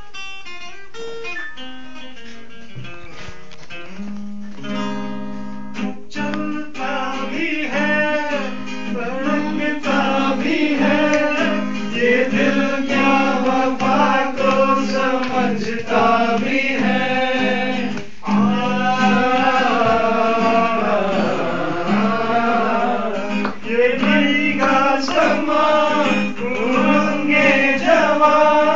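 Acoustic guitar played live, picking single notes at first, then holding chords. From about six seconds in, a voice sings a melody over the guitar.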